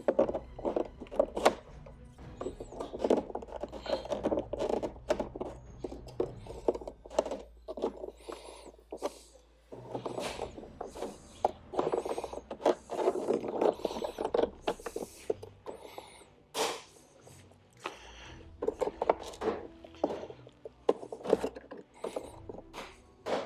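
Plastic trim on a Ford Focus door card being pried and worked loose by hand: irregular scraping and rubbing of plastic on plastic, broken by sharp clicks as clips let go.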